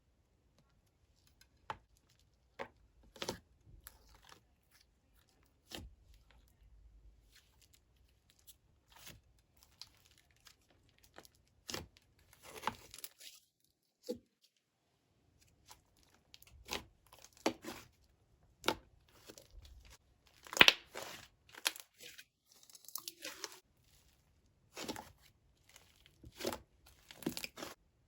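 Slime being stretched, squished and pressed by hand, giving irregular crackles and bubble pops that come thicker in the second half.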